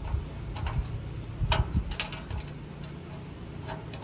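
A handful of light metal clicks and knocks as a clamp-on bumper bracket is pushed and worked around a square metal bumper tube to close it, the loudest about two seconds in.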